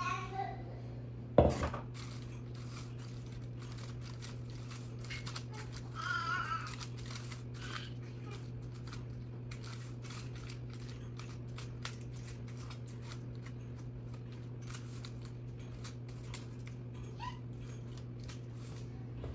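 Rubber spatula scraping and tapping as soft dough is scraped out of a mixing bowl and spread in a foil-lined baking pan. There is one sharp knock about a second and a half in, over a steady low hum.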